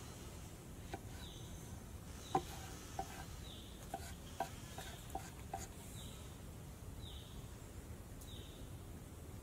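Kitchen knife slicing mushrooms on a wooden cutting board: a run of sharp knife taps on the board, about seven strokes, the loudest about two seconds in, stopping after about six seconds. A short high chirp repeats about once a second behind it.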